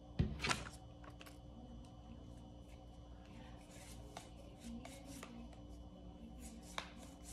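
Cardboard game cards being handled: a sharp double knock just after the start, then soft rustling and a few small clicks.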